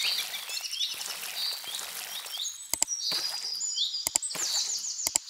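Birdsong ambience of quick chirps and rapid trills. Short double pops cut in about halfway, again about three-quarters through, and near the end.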